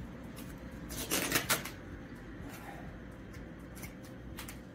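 Vinyl wrap film being peeled up from a car hood: a brief crackly rip about a second in, followed by a few small clicks.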